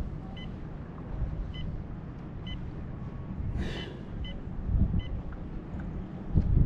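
Wind buffeting the microphone with a low rumble, broken by about five short electronic beeps from the bass boat's bow electronics and a brief hiss about two-thirds of the way through.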